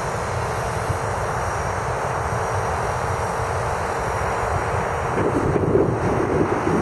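E-flite Blade 450 electric RC helicopter's rotor and motor droning steadily in flight. About five seconds in the sound grows louder and its pitch wavers.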